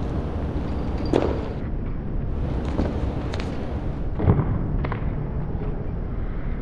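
A parkour athlete's feet and hands hitting walls and landing on the ground: about five sharp thuds, the heaviest a little past halfway, over a steady low background rumble.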